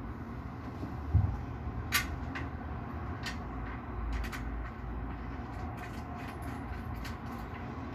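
Bed frame parts being handled and screwed together: a dull thump about a second in, a sharp click a moment later, then scattered light clicks and ticks over a low background rumble.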